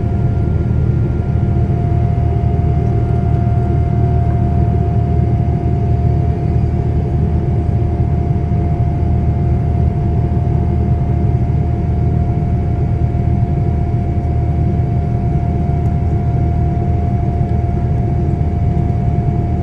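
Boeing 787 cabin noise during the climb after takeoff: a loud, even low roar of engines and airflow, with a steady whining tone that comes in about a second in and holds.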